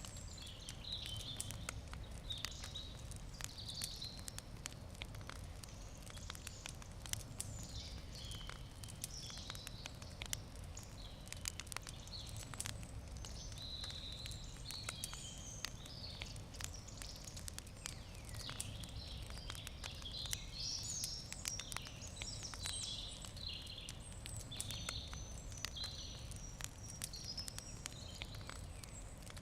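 Wood campfire crackling, with irregular sharp pops and snaps throughout. Birds chirp and sing in the background over a steady low rumble.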